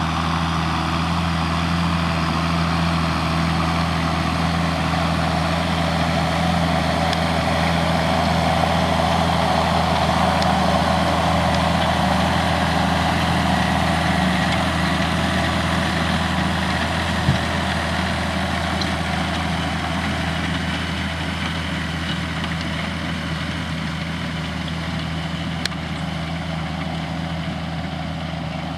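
John Deere tractor's diesel engine running steadily in the field. It grows a little louder toward the middle, then slowly fades toward the end. One short click comes about two-thirds of the way through.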